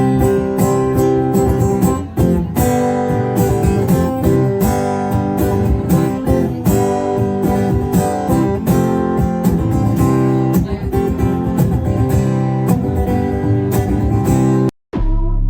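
Acoustic guitar strummed in a steady rhythm, an instrumental passage that stops abruptly near the end.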